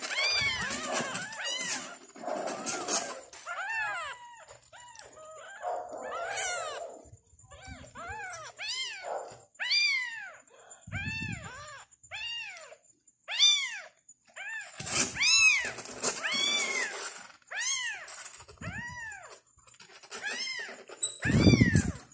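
Newborn tabby kittens mewing over and over in thin, high cries, about one to two a second, each rising then falling in pitch, during a bottle feeding of hungry kittens. A couple of soft low bumps from handling come about halfway through and near the end.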